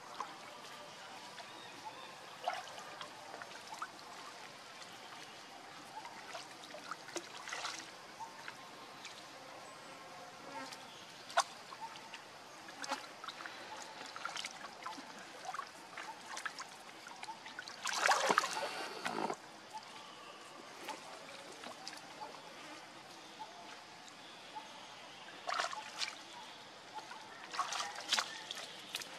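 Pond water splashing and lapping as macaques swim and clamber in it, with scattered small splashes and drips and one louder splash about two-thirds of the way through.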